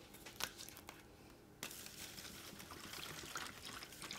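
Water poured from a plastic bottle into a foil-lined plastic tub holding borax powder, a steady trickling pour that starts about a second and a half in.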